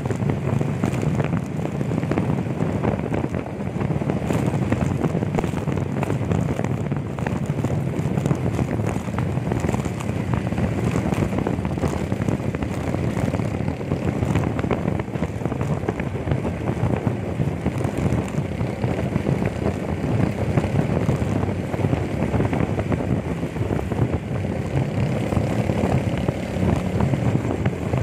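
Steady wind rushing over the microphone of a moving vehicle, with its engine running underneath and no change in speed.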